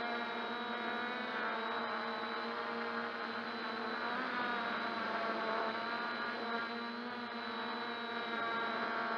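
Brushless motors and propellers of an MJX Bugs 2W quadcopter running in flight, heard from a camera mounted beneath it: a steady buzzing whine whose pitch wavers briefly about four to five seconds in.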